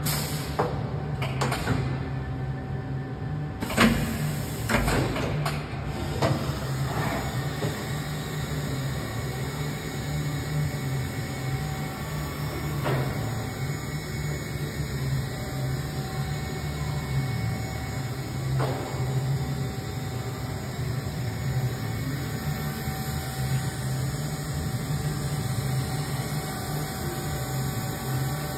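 Dugard Eagle 850 vertical machining centre running a program: a steady machine hum with a wavering low drone as its axes move the spindle head. Several clicks and knocks come in the first few seconds, and two more come later.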